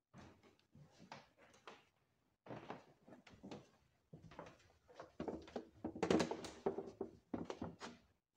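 Footsteps on old wooden floorboards, with irregular knocks and creaks. The loudest creaking comes a little past the middle.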